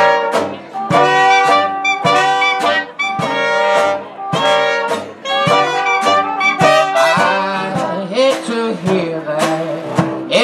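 Traditional New Orleans-style jazz band playing live: clarinet, trumpet and trombone play short phrases together, broken by brief gaps, over banjo, guitar and sousaphone.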